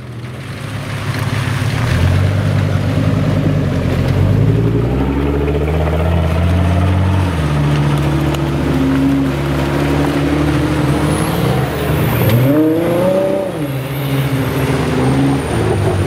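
Engines of off-road vehicles, a Mitsubishi Pajero followed by custom-built off-road buggies, driving past one after another up a muddy track. The engine note swells and falls as they rev, with a short sharp rev rising and dropping about three-quarters of the way through.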